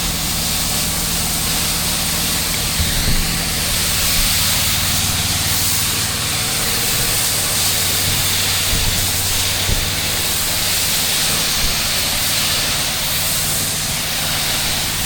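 Mo Flo soft wash system spraying a 1.5% pre-treatment mix onto a driveway: a steady hiss of spray over the steady drone of the pressure washer's engine, with a few faint knocks.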